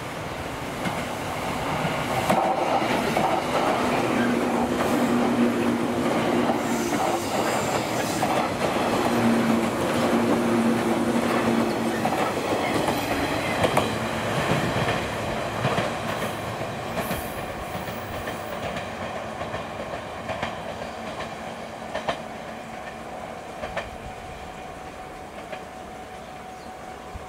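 Eight-car JNR 117 series electric train passing at speed, wheels clacking over rail joints under a steady low hum. It swells about two seconds in and fades away from about sixteen seconds as it recedes.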